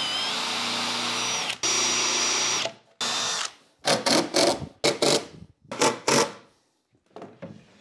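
Cordless drill/driver driving screws into a plywood drawer: two longer runs at steady speed with a motor whine, then a shorter run and a quick series of short trigger bursts as screws are run home.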